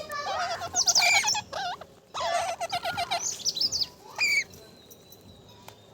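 Pet parrot chattering in a rapid run of high, warbling calls, then one more sharp call about four seconds in.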